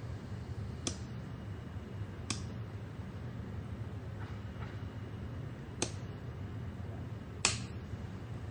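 A light switch clicked on and off repeatedly, four sharp clicks and two fainter ones, over a steady low hum. The power to a Wi-Fi LED bulb is being cycled three times to reset it to factory settings.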